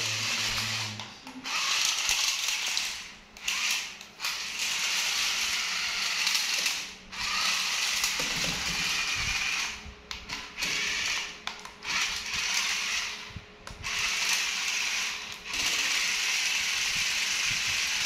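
Small electric motors and plastic gears of a toy remote-control 4x4 stunt car whirring as it drives, in runs of one to three seconds broken by short stops. A few low knocks come about halfway through.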